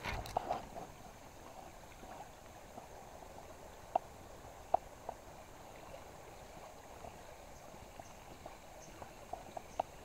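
Steady rush of a swollen, fast-flowing river, with a brief louder handling noise at the start and scattered faint ticks from time to time.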